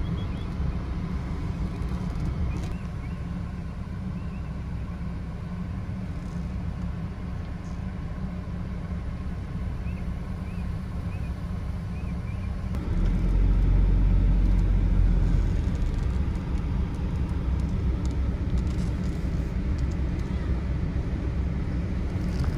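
Car driving slowly on a dirt track, heard from inside the cabin: a steady low rumble of engine and tyres, which gets louder about thirteen seconds in.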